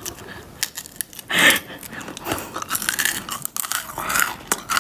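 Donut-shaped lollipop candy bitten and crunched between the teeth: a run of short, sharp cracking clicks, with one louder burst about a second and a half in.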